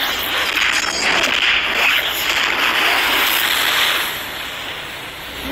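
Loud rushing noise from the cartoon's sound effects, with a few faint cracks in it, dying away over the last second or so.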